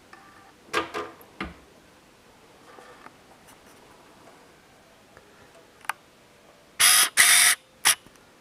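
Naim CD5 CD player's disc drawer being pushed shut by hand, with two or three clunks about a second in, then faint mechanism sounds as the disc is read. Near the end come two loud, short rushing noises, each about a third of a second, and a sharp click.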